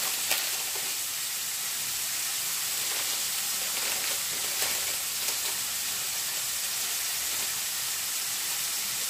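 Diced pancetta sizzling steadily as it fries in a pan, with a few sharp crackles.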